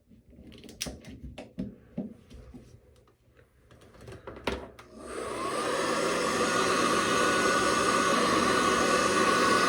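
Scattered clicks and knocks of handling, then a handheld hair dryer switched on about five seconds in, its motor winding up to a steady blowing whir on a hot setting.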